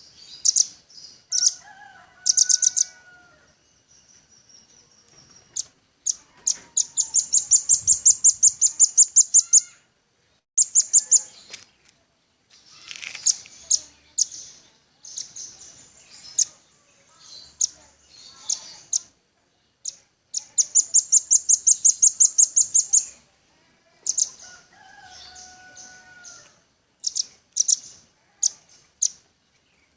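Velvet-fronted nuthatch singing: fast trills of sharp, high notes come in repeated bursts, two of them lasting a few seconds each. A fainter, lower whistled call sounds twice.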